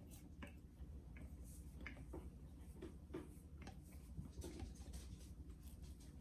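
Faint, irregular small clicks and ticks over a low steady hum.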